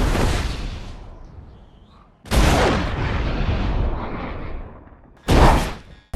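Three heavy cinematic impact or blast sound effects edited back to back. The first fades out, a second hits suddenly about two seconds in and dies away over a few seconds, and a short hard burst near the end cuts off abruptly.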